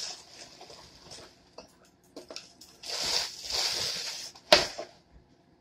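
Plastic bag of ice crinkling and rustling as the ice is handled, with a louder rattling rustle about three seconds in and then a single sharp clunk, the loudest sound, about four and a half seconds in.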